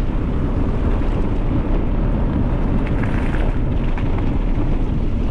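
Steady loud wind buffeting on the camera microphone as the bicycle rides along, with a few faint rattles from the bike.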